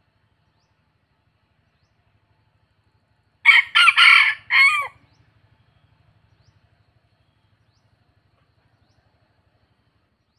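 A junglefowl-cross rooster crows once, a short, clipped crow of four quick syllables about three and a half seconds in, the last syllable falling away.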